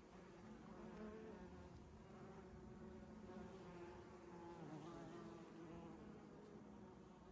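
Faint buzzing of bees in flight, the hum wavering up and down in pitch.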